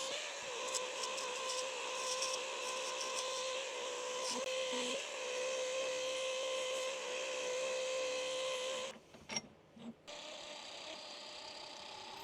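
Wood lathe motor running steadily with a constant hum, switched off and running down about nine seconds in.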